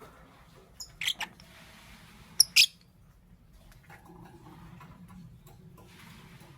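Lovebirds giving short, shrill chirps: a couple about a second in and two louder ones about two and a half seconds in.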